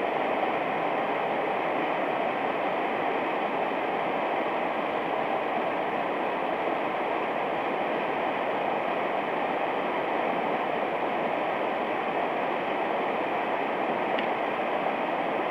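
Steady rush of a fast, swollen mountain stream in high water, an even hiss without a break.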